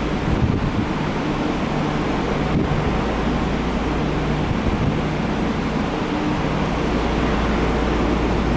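Subway train running, heard from inside the carriage: a steady rumble of wheels and running gear, with a low hum that comes and goes.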